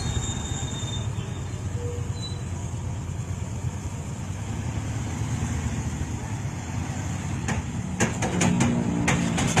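Heavy logging truck's engine rumbling steadily as the loaded semi drives past; from about eight seconds in its engine note comes through more clearly, with a few sharp knocks.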